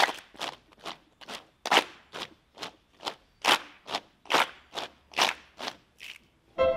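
A group of students playing body percussion in unison: sharp hand strokes at a steady beat of about two a second, some accented louder, with no music behind them.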